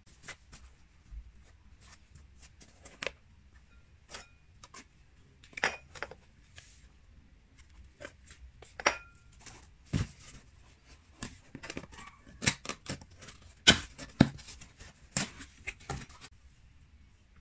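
Cardboard box being handled and opened: irregular scrapes, taps and rustles of cardboard, getting busier and louder in the second half, with a few brief ringing clinks of glassware.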